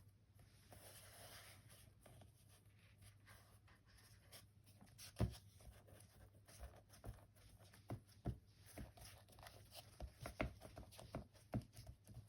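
Faint crafting handling sounds: a soft rustle of paper or fabric being smoothed, then a scattering of small sharp taps and clicks on the work table.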